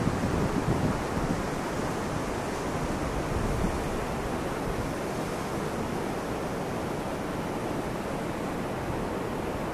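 Wind blowing across the microphone: a steady rushing hiss with uneven low buffeting.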